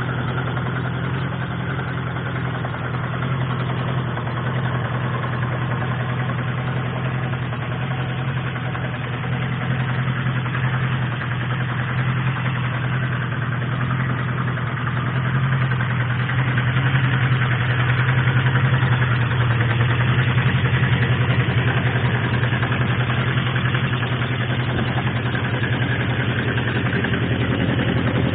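Engine of a 1987 Suzuki GSX-R1100 streetfighter, an oil-cooled inline four, idling steadily, getting a little louder about 16 seconds in.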